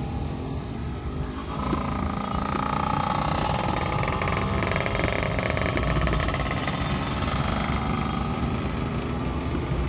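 Road and engine noise of a moving car heard from inside the cabin, driving in traffic behind a truck with motorcycles around it: a steady low rumble, with a higher steady drone joining about a second and a half in.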